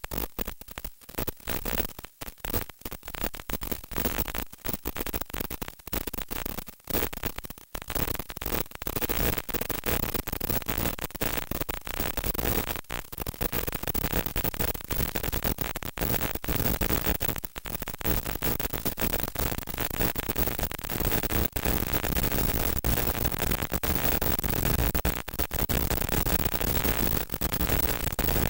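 Static hiss from an analog 5.8 GHz FPV video receiver's audio output. It is choppy, cutting in and out in quick dropouts for the first several seconds, then settles into a steadier hiss. The picture at the same moment is heavily snowed, so the sign is a weak, breaking-up radio link.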